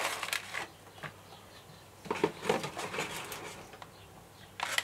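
Clear plastic packaging being handled: light clicks and crinkles of the plastic case in a few short clusters, the busiest about two seconds in.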